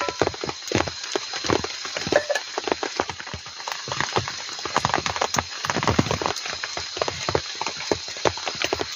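Rain pattering steadily, with many irregular sharp taps and knocks.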